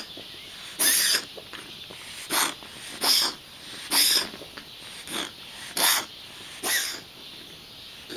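A pet wheezing: a run of laboured, noisy breaths about once a second, several with a thin whistling tone. This is the recurring wheezing episode the animal has every morning.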